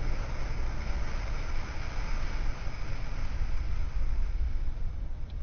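Car driving: a steady low rumble of engine and road noise with a broad hiss of tyres.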